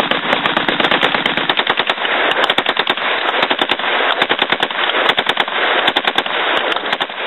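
Semi-automatic Group Industries short-barreled Uzi firing a rapid, unbroken string of shots, several a second.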